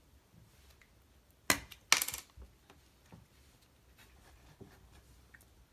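Shaving foam aerosol can: a sharp click about one and a half seconds in, then a short spray burst about half a second later. Faint taps and rubbing follow.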